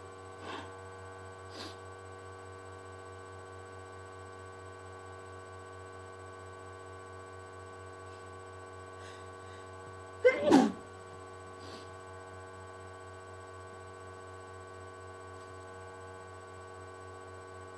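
A single loud, short sneeze into a handkerchief about ten seconds in, its pitch falling, from a person with a cold. Faint short sounds come near the start and just after it, over a steady background hum.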